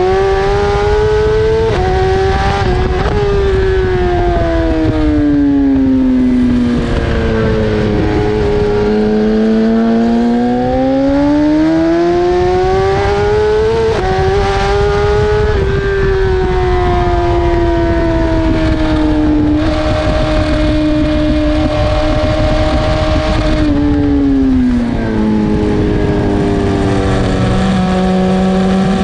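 BMW S1000RR's inline-four engine at race pace, revving up through the gears with quick upshifts, dropping on deceleration and winding up again, over heavy wind rush. Near the end the revs fall and hold at a lower, steady pitch.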